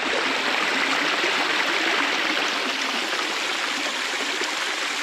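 Shallow forest stream splashing over a low step of rocks, heard close up: a steady, loud rushing of water.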